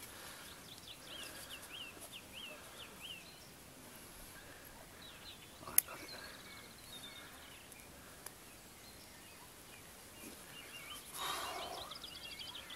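Quiet lakeside ambience with a small bird chirping a quick run of about eight notes near the start and a few more later on. One sharp click comes about six seconds in.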